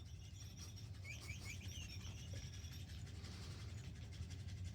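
A quick run of high, bird-like chirps in the first two seconds or so, over a faint steady low hum.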